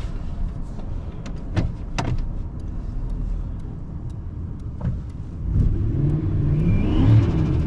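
Turbocharged 5.4-litre V8 of a 2003 Ford F-150, heard from inside the cab, running low with a few sharp clicks. About two-thirds of the way in it revs up, its pitch rising steadily, with a faint turbo whistle climbing along with it.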